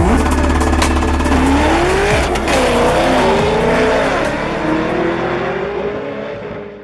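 Drag car engine running hard with tyres squealing in a wavering pitch, as in a burnout. It fades and then cuts off at the end.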